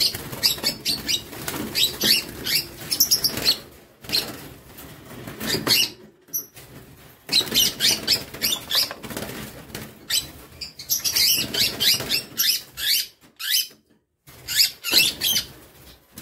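Young lovebirds flapping their wings against the wire of a cage in repeated bursts with short pauses, fluttering as a hand reaches in to catch one.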